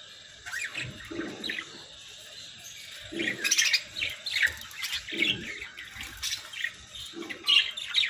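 Hagoromo budgerigars chirping and chattering in quick, short notes, busier and louder in the second half.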